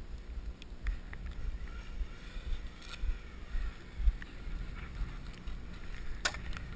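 Low, uneven rumble on the microphone with a few scattered sharp clicks, the loudest about six seconds in.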